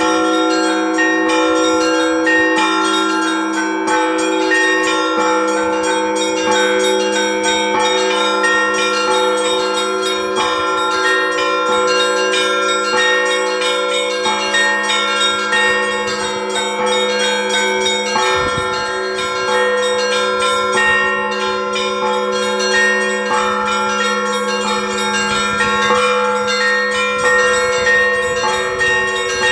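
Orthodox church bells ringing together: low bells hum on under a continuous pattern of quick, repeated strikes on smaller, higher-pitched bells.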